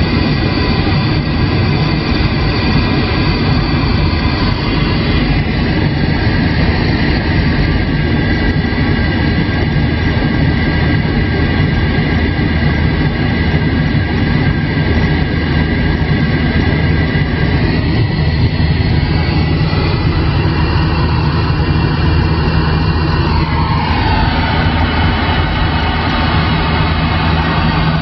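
CB radio receiving on AM with no one transmitting: a steady hiss of static with whistling tones in it that change pitch a few times, one of them gliding down near the end, over a low steady hum.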